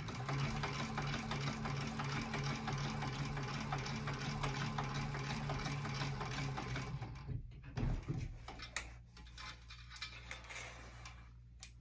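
Industrial sewing machine running steadily, topstitching around the edge of a vinyl pouch, then stopping about seven seconds in. A few light clicks follow.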